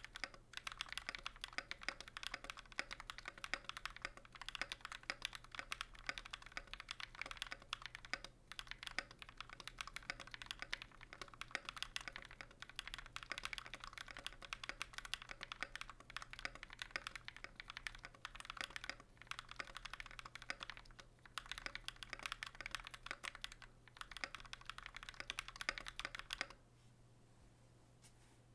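Continuous typing on a KBDfans KBD67 MK II mechanical keyboard with lubed Durock POM linear switches on an FR4 plate and GMK keycaps: a dense stream of keystrokes with a few short pauses, stopping about two seconds before the end.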